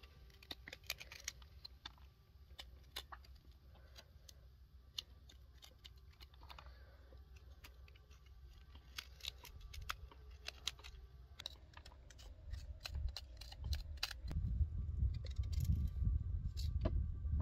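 Small knife cutting and scraping the core out of a raw quince: an irregular run of crisp little clicks and snicks. About two-thirds of the way in, the clicks thin out and a louder low rumble takes over.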